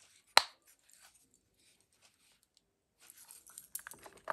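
Handling of a small antique jewelry box: one sharp click about half a second in, like a lid snapping shut or the box being set down, then faint rustling and small knocks from about three seconds on, with another click near the end.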